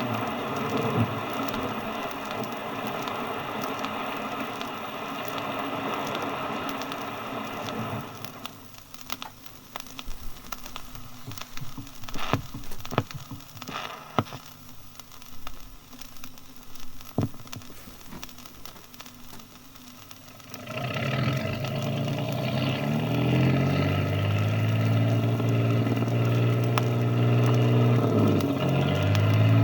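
Sounds of a river barge at work: a steady noisy running sound, then a quieter stretch of scattered knocks and clicks. About 20 seconds in, a boat engine comes in loud and keeps running, its pitch shifting up and down.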